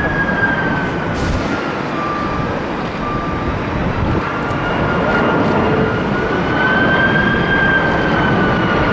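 Jet airliner engines running with a steady roar and a high whine that slowly dips and rises in pitch.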